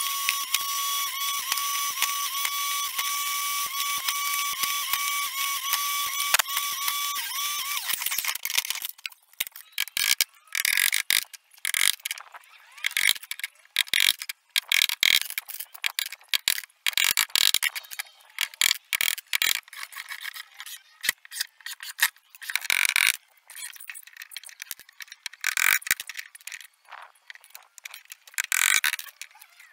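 Table saw motor running steadily with a high whine for about eight seconds, then stopping. After that comes an irregular series of sharp hammer strikes nailing pallet boards onto a wooden frame.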